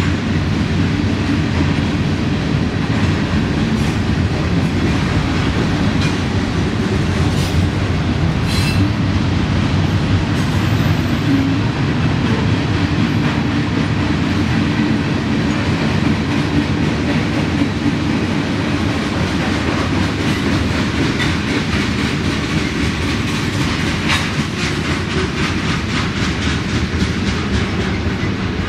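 Freight train of tank cars rolling past: a steady rumble of steel wheels on rail, with a rhythmic clickety-clack as the wheels cross the rail joints, the clicks strongest near the end.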